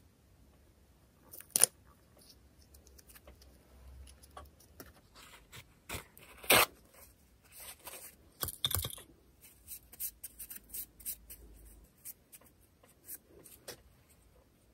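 Close-up handling sounds of nail-art work: scattered sharp clicks and short scratchy, tearing-like scrapes of small tools and materials. The loudest come about one and a half seconds and six and a half seconds in, with a busy run of clicks in the middle.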